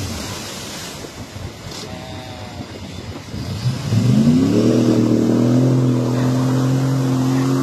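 Off-road SUV engine working in deep mud and water, with the splashing and churning of the tyres. About three and a half seconds in, the revs climb and are held high and steady as it pushes through.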